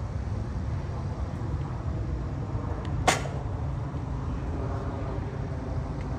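One sharp crack of a bat hitting a ground ball, about three seconds in, over a steady low background rumble.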